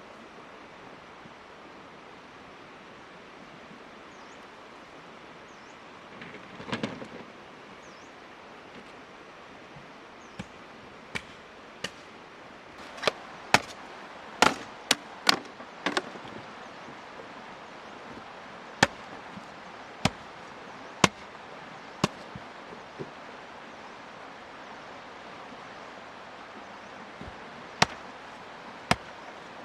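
Sharp single knocks or chops, irregularly spaced, coming thicker near the middle and then more sparsely, over a steady hiss.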